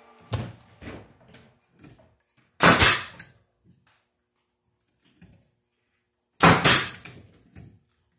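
Pneumatic nail gun firing into wood twice, about four seconds apart, each shot a sharp bang. Light knocks of wooden pieces being handled come just before.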